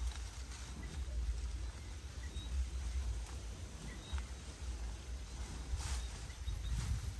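Outdoor ambience: a low rumble of wind on the microphone with a few faint bird chirps, as a cow grazes in tall grass. There is a brief rustle of grass about six seconds in.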